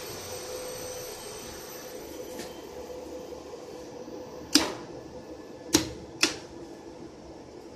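Steady electrical hum of an elevator control cabinet, broken past the middle by three sharp clicks, the second and third close together.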